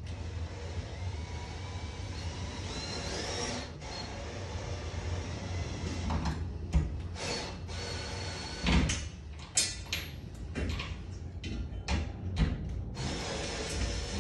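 Cordless drill driving screws up through a steel ceiling strut into the rafters, its motor running in spells, with several sharp knocks from about six seconds in.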